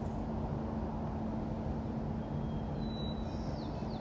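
Steady daytime city street ambience: a low, even rumble of traffic with a constant hum, and a few faint high chirps in the second half.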